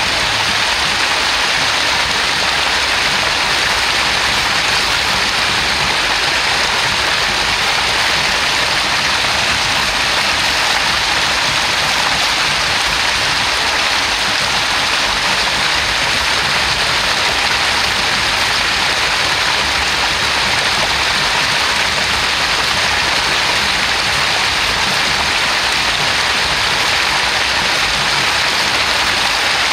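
Spring water from a small river source spilling over a rock lip into a little cascade, an unbroken, even rush of splashing water.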